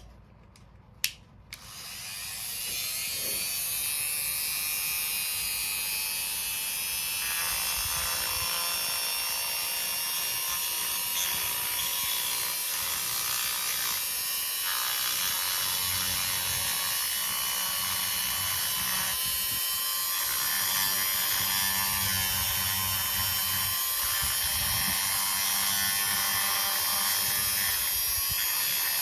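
A small handheld power tool, such as a rotary tool, starts about two seconds in after a sharp click and runs steadily, its high motor whine holding even as it works the sculpture.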